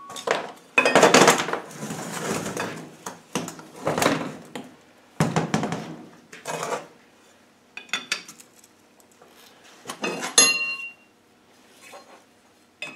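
Metal clanking and scraping as a Land Rover R380 gearbox casing is shifted on the bench and a pry bar is set against a gear that is stuck on its shaft. It comes as a series of separate knocks, the loudest about a second in, with a brief metallic ring about ten seconds in.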